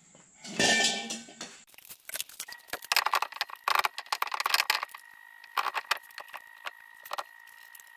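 Steel road wheel being fitted back onto a drum brake hub: a brief scrape as it goes on, then a run of small metallic clicks and taps as the wheel bolts are started by hand.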